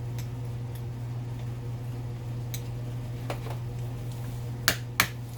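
Small screwdriver working a screw out of a water heater's gas valve: faint ticks of metal on metal, then two sharp clicks close together near the end, over a steady low hum.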